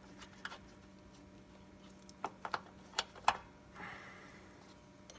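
Hand tools clicking and clinking: a socket, extension and wrench being handled and fitted on a wheel hub's bolt, with a few sharp metal taps, the loudest about three seconds in.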